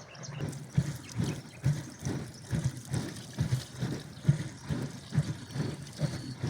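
Milk sloshing inside a leather churning bag (mashk) being rocked back and forth to make butter, a steady rhythm of about two sloshing thuds a second.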